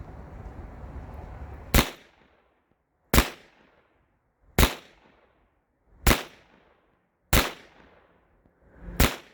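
Taurus 327 revolver fired six times in slow, steady succession, one shot roughly every one and a half seconds, emptying its six-round cylinder.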